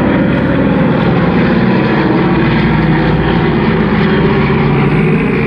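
Douglas DC-3 Dakota's two radial piston engines and propellers running as the plane flies past: a steady, even, low-pitched drone.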